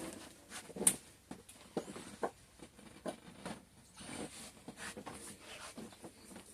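Light clicks, taps and rustles of hands handling a freshly unmolded soap loaf and its mold pieces, with one sharper knock about a second in.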